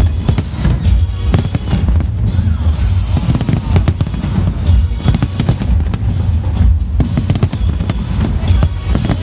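Fireworks going off in quick succession, many sharp bangs and crackles over loud music with drums.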